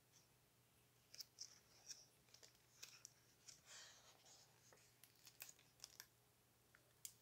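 Faint paper handling as the pages of a hardcover picture book are turned: light clicks and short rustles, with a longer rustle of a page sweeping over about four seconds in.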